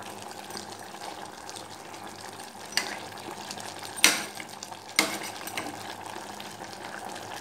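Metal ladle stirring chicken masala in an open pressure cooker, knocking against the pot three times, sharpest about four seconds in, over a steady faint simmering sizzle.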